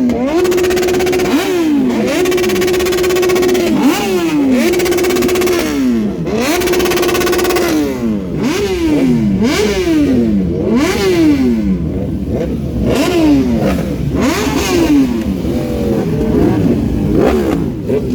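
Superbike engine revved hard while standing, loud: several times it climbs to a high steady pitch, holds there for a second or more, then drops back. In the second half it gives quicker blips of the throttle, rising and falling about once a second.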